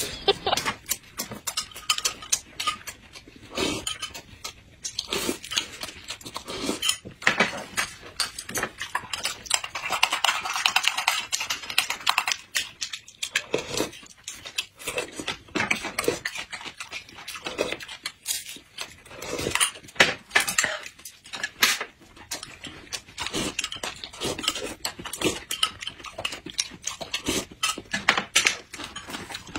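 Close-up eating sounds of two people chewing and lip-smacking on stuffed flatbreads, with a spoon sipping from a glass bowl and utensils clinking on dishes now and then.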